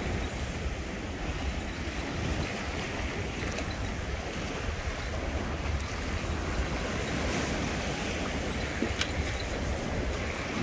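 Steady wind rumbling on the microphone over waves washing at the shore, with a single short click about nine seconds in.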